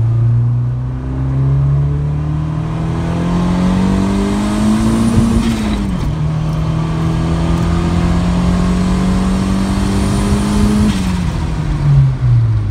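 Turbocharged Honda Civic four-cylinder heard from inside the cabin, accelerating hard: revs climb, drop sharply at a gear change about six seconds in, climb again with a faint rising turbo whistle, then fall as the driver lifts off near the end.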